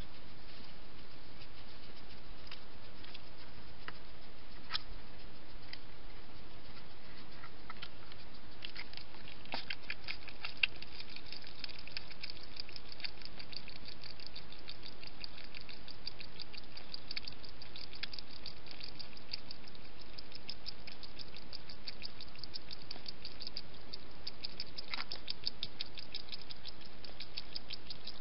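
European hedgehog feeding at its dishes: a fast, dense run of small clicks of chewing and lapping that starts about eight seconds in and keeps going, after only a few scattered ticks at first.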